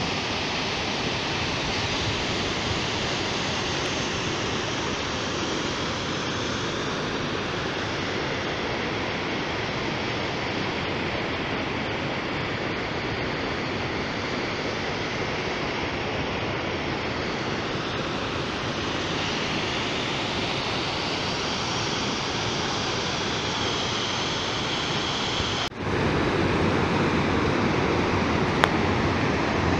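Steady rush of a small waterfall pouring over rock ledges into a pool. Near the end it cuts abruptly to a louder, deeper rush of water.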